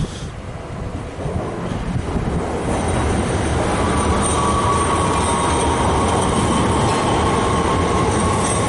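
NS Sprinter Lighttrain (SLT) electric train pulling into the platform. Its rumble grows louder over the first few seconds as it comes alongside, and a steady high whine joins about four seconds in as it slows.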